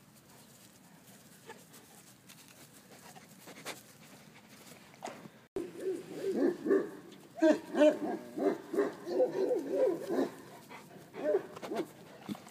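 Pyrenean mastiff puppy yelping and whining, a rapid series of short pitched calls that start about halfway through and come in a burst of a few seconds, with two more shortly after.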